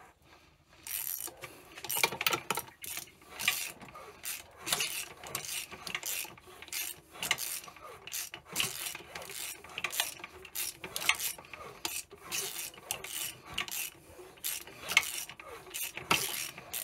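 Ratchet spanner clicking in quick, repeated strokes as a rebuilt single-cylinder four-stroke motorcycle engine is turned over by hand at the crankshaft, spark plug out, to check that the cam timing holds and nothing fouls.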